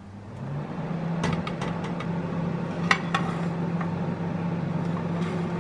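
Oven running with a steady low hum as it starts to bake at 190 °C, with a couple of sharp clicks about one and three seconds in.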